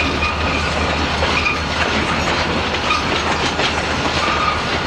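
Freight train rolling past: empty bulkhead flatcars clattering steadily over the rails, under the low steady drone of an EMD SD40-2 diesel locomotive.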